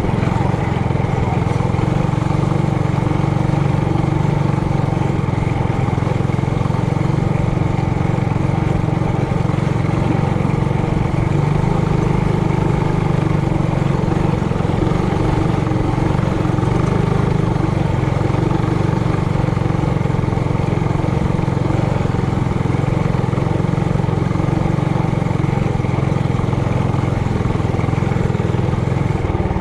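Trailmaster Hurricane 200X mini bike's four-stroke single-cylinder engine running at a steady speed while riding along a trail.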